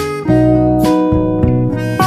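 Background music with guitar strumming: two strums about half a second apart, then held chords.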